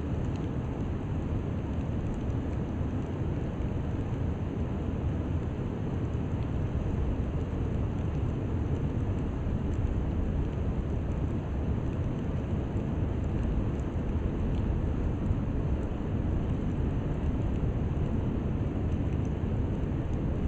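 Heavy rain during a storm, a steady, deep rushing noise that carries on without a break.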